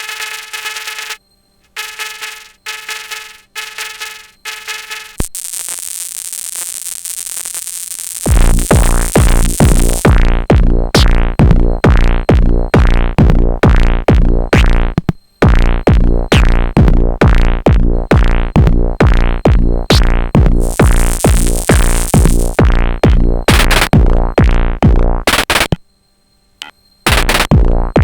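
Live techno from a Sonic Potions LXR-02 digital drum machine. It opens with short, repeated pitched synth stabs and a rising noise sweep. About eight seconds in, a loud, steady kick-drum beat with pitched percussion comes in, breaking off briefly near the middle and again near the end.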